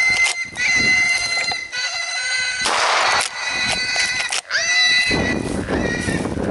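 Feral pigs squealing in long, high cries while shotgun blasts go off among them.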